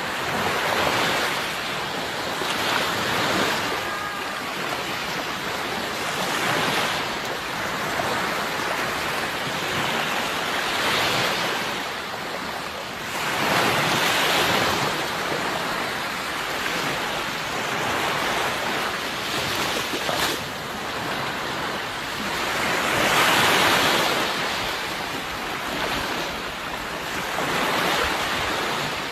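Sea waves breaking and washing onto the shore, swelling louder every few seconds, with wind in the background.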